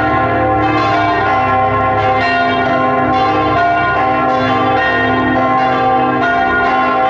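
Several church bells pealing together, struck over and over so that their tones overlap in a continuous, loud ringing.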